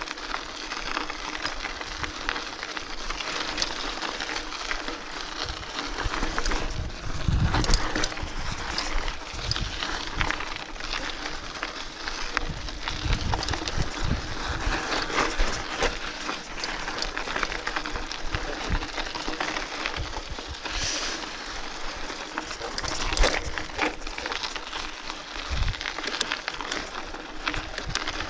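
Mountain bike descending a dirt singletrack: tyres rolling over loose dirt and rocks, with a constant clatter of small rattles and knocks from the bike. Heavier thumps come about seven seconds in and again near the end, as the bike hits bumps.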